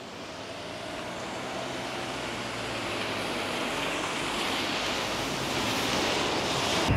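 A train running, a steady rumble and hiss that grows gradually louder.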